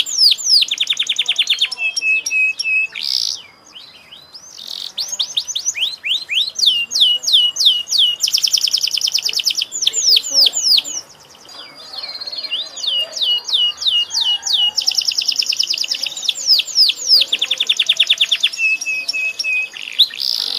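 Domestic canary singing a long, vigorous song of fast trills and runs of repeated downward-sweeping whistled notes, with two brief pauses, about four and eleven seconds in.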